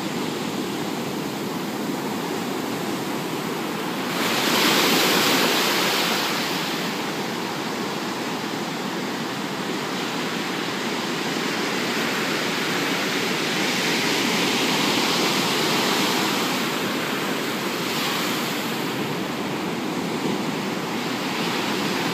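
Pacific Ocean surf breaking and washing on the beach: a continuous rush of water, with a wave crashing loudest about four seconds in and the wash swelling again near the middle.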